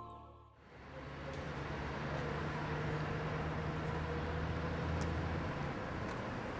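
City street ambience fading in after a moment of near silence: steady traffic noise with a vehicle's low engine hum that drops away near the end.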